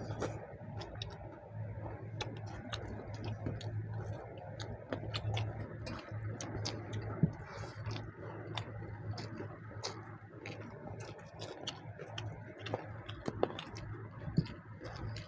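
People eating chicken curry and rice: chewing and mouth sounds with many small irregular clicks and taps, over a steady low hum.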